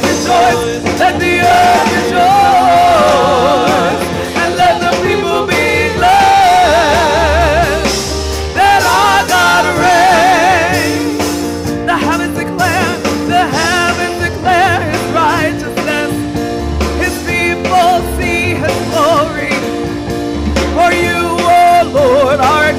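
A woman singing a gospel worship song into a microphone, holding notes with wide vibrato and vocal runs, over a Roland Juno-DS keyboard playing chords and bass.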